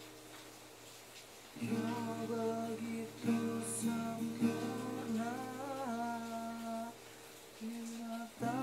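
Acoustic guitar playing strummed chords, a new chord struck every second or two, with a short lull near the end before the next chord.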